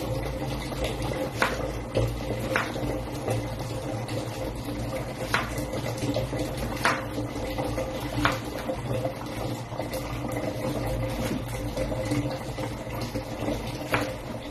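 Knife tapping on a cutting board as a pear is cut up: about seven sharp, irregular taps, a second or more apart, over a steady low hum.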